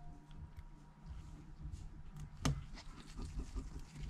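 Faint scratchy handling of a precision screwdriver driving a tiny Phillips screw into a phone's metal screen bracket, with small clicks and one sharp click about two and a half seconds in.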